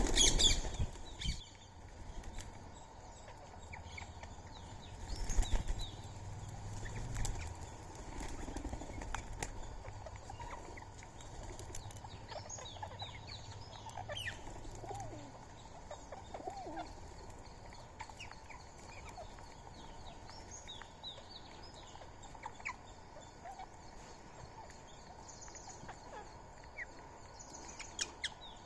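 Birds calling with many short chirps and falling notes, with loud bursts of wing flapping right at the start and again about five seconds in.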